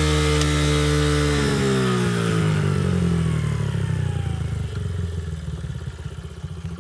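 2009 Honda CRF50F pit bike's small single-cylinder four-stroke engine running at steady high revs, then dropping in pitch about a second and a half in as the throttle comes off. It settles into a low, uneven putter that gradually fades.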